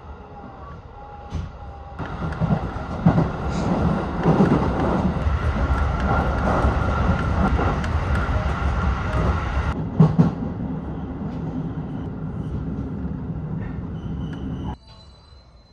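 Interior of an electric local train running on the Tokaido Line: a steady rumble of wheels on rail, with a few louder knocks. It swells about two seconds in and drops off sharply near the end.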